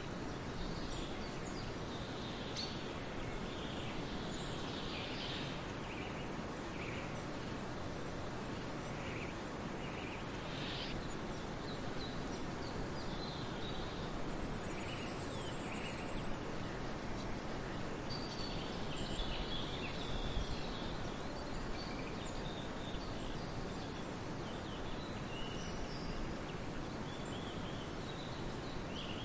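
Steady outdoor ambient hiss with birds chirping and calling here and there, and one thin, high whistle held for about two seconds midway.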